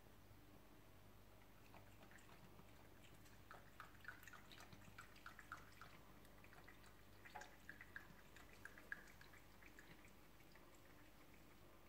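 A Bengal cat lapping water from a stainless steel sink: faint, quick ticks in runs of several a second, starting a few seconds in.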